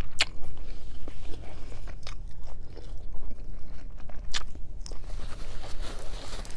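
Close-up chewing of a mouthful of romaine lettuce wrap, with a few sharp crisp crunches. Near the end a paper napkin rustles softly against the mouth.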